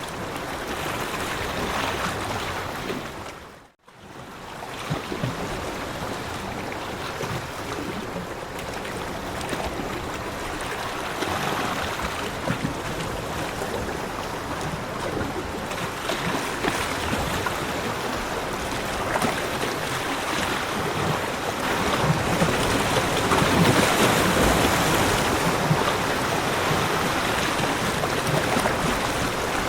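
Sea waves breaking and washing over shoreline rocks, a steady rush of surf that grows louder about two-thirds of the way through. The sound cuts out briefly about four seconds in.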